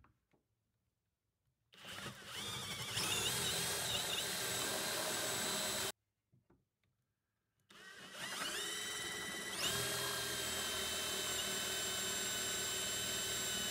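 Power drill boring dowel holes into a maple chair-leg blank with a twist bit. Two runs: the motor winds up to speed and runs steadily for about four seconds, stops suddenly, then after a short pause winds up again and runs steadily to the end.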